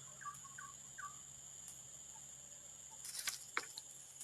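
Outdoor ambience: a steady high insect drone with a few short bird chirps in the first second or so, and a few sharp clicks a little after three seconds in.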